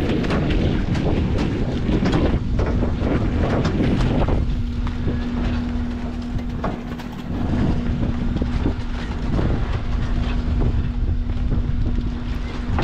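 Tractor engine running steadily while it pulls a cabbage harvesting rig with a boom conveyor along the field, the machinery rattling and knocking over a constant hum, with some wind on the microphone.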